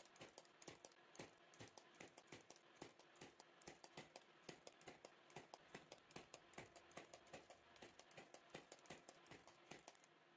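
Faint, evenly spaced clicks, about three a second, from a cordless pin nailer firing pins to tack glued wooden slices together.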